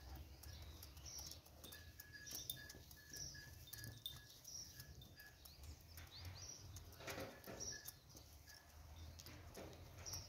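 Faint pecking taps of hens feeding from a dish on cardboard, with short high bird chirps repeating about once a second.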